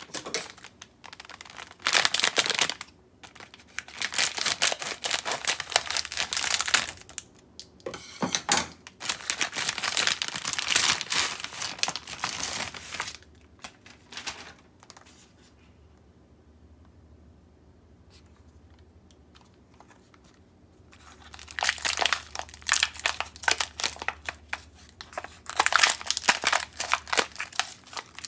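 Plastic packaging of frozen gyoza crinkling as it is handled: the printed outer bag, then the thin clear plastic tray. The crinkling comes in bursts, with a quiet pause of several seconds in the middle.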